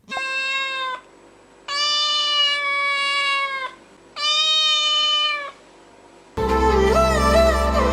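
A cat meowing three times in long, drawn-out, level-pitched meows, the middle one longest. Music starts about three-quarters of the way through.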